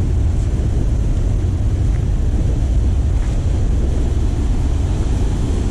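Wind buffeting the microphone in a steady low rumble, over the even rush of surf breaking on a rocky shore.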